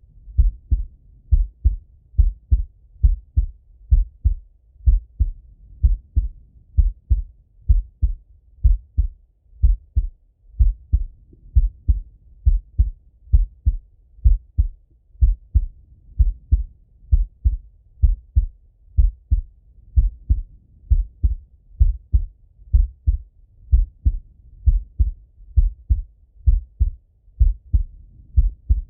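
A man's heartbeat heard through a stethoscope on his chest: slow and steady at about one beat a second, each beat a low double thump (lub-dub).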